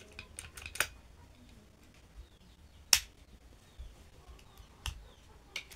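Scattered sharp clicks and light taps from handling plastic electrical wiring parts (a contactor being screwed at and a double-pole circuit breaker), with one loud click about three seconds in.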